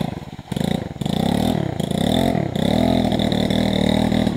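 Coolster 110 pit bike's small single-cylinder four-stroke engine labouring through mud and shallow water: it sputters unevenly for about the first second, then is revved up and down several times.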